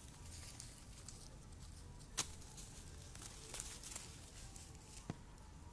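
Dry leaves and twigs on the ground crackling and snapping as they are stepped on and disturbed, with a sharp snap about two seconds in and a smaller one near the end.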